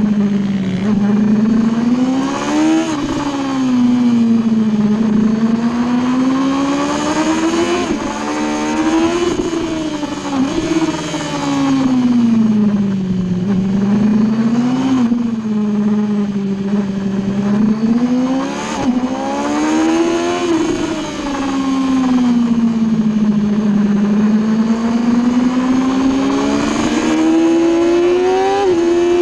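Superbike engine heard from the rider's seat at racing speed. Its note climbs and falls over and over as the rider accelerates out of corners and slows into them, with quick drops in pitch at gear changes.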